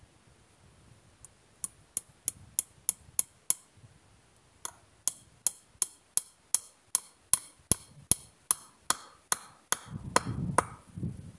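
A hammer driving metal nails into a wooden crossbar, with steady sharp strikes about three a second. There is a short pause after the first eight blows, and some handling noise near the end.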